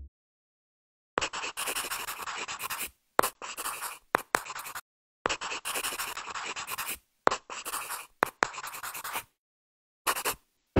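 Pen writing strokes: scratchy sounds of a nib dragged across a surface, coming in irregular strokes from a fraction of a second to about two seconds long, with dead silence between them.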